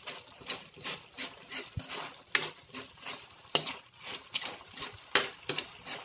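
Metal ladle scraping and knocking against a metal wok while stirring a thick sauce, in quick repeated strokes about three a second.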